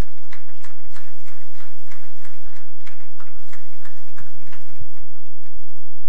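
Scattered handclaps from a few people: sharp, separate claps at an uneven pace of roughly four a second, with a few faint low thumps among them.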